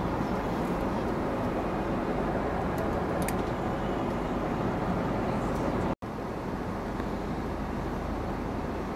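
Steady roar of an airliner cabin in flight: engine and airflow noise inside a Boeing 777-200ER. The sound drops out for an instant about six seconds in, where the recording cuts.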